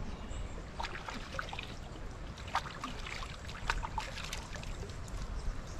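Hands scooping water from a shallow creek: a run of small, scattered splashes and trickles as the water is lifted and runs back off the hands.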